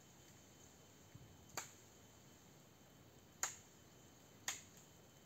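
Three sharp chops of a hand-held blade striking tree branches while lopping leafy branches, spaced about a second or two apart, each with a short ring-off.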